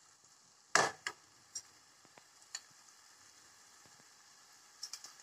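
Faint, steady sizzle of onion-tomato masala frying in a non-stick kadhai. A sharp utensil knock comes about a second in, followed by a few lighter clicks as biryani masala powder is tipped in and worked into the pan.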